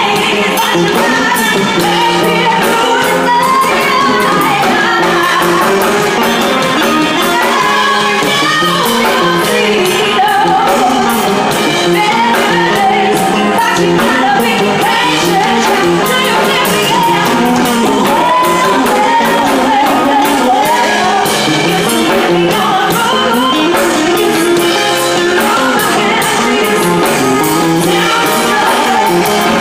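Live band music with a woman singing lead through a handheld microphone, over a steady beat.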